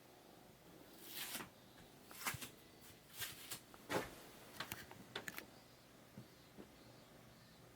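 Faint, scattered scratching and rustling with a few sharp clicks, bunched between about one and five and a half seconds in, as of a kitten scrabbling about at play.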